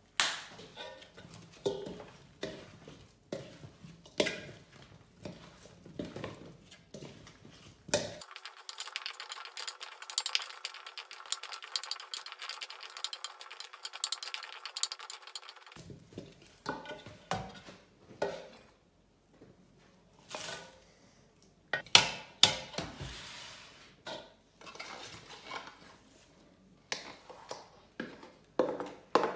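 Cubed radish being tossed and mixed by hand in a large stainless steel bowl: chunks knock and click irregularly against the metal, with a dense wet crackle of mixing in the middle and a sharper clank of bowls about two-thirds through.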